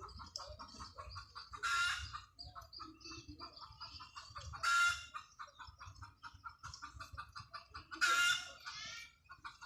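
Chickens clucking continuously, with three loud squawking calls about three seconds apart.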